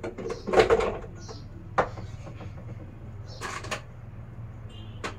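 Handling noises of objects being moved about: a loud clatter with rustling about half a second in, a sharp knock near two seconds, more rustling around three and a half seconds, and a click near the end.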